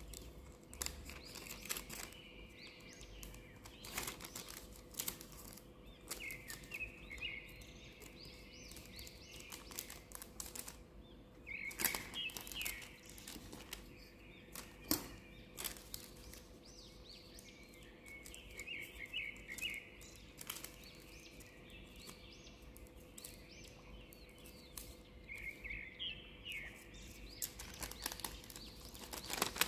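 Paper being folded and creased by hand: soft rustles with frequent sharp crease clicks. Small birds chirp in the background in short bursts of quick notes every few seconds, over a faint steady hum.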